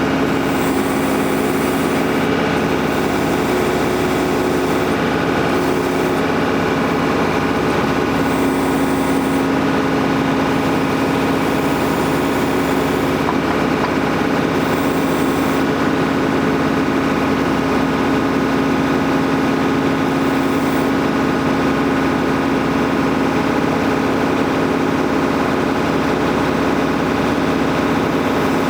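Tractor engine running at a steady speed while it powers a John Deere 485A backhoe, with an even, unchanging hum.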